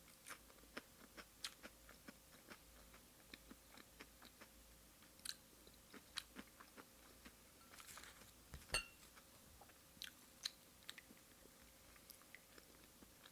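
Quiet, close-up chewing of raw fish sashimi: a string of soft, wet mouth clicks and smacks, with one sharper click about nine seconds in.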